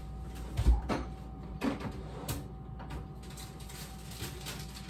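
Someone rummaging through kitchen storage: a few soft knocks and thumps, the loudest a low thump just under a second in, with smaller ones soon after.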